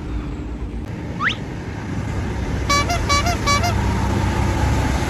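Telolet multi-tone bus horn giving four short toots in quick succession about three seconds in, over a steady low engine rumble. A short rising whistle sounds about a second in.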